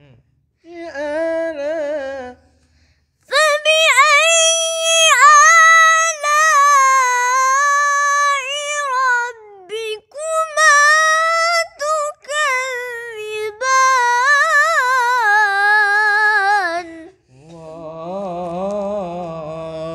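A girl reciting the Quran in tarannum, the melodic chanted style: a high voice drawing out long, wavering, ornamented phrases with short breaks for breath. Near the end a much lower male voice takes up the recitation.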